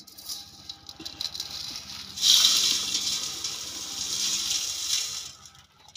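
Coarse sand poured from a metal pan into a bucket, a hissing rush of grains. It starts as a few scattered trickles, swells loudly about two seconds in, and tails off near the end.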